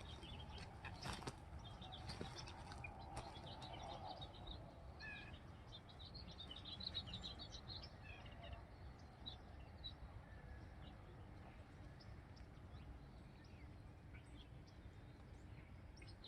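Faint small birds chirping and twittering over a low steady background hum of outdoor noise, with a couple of sharp clicks about a second in.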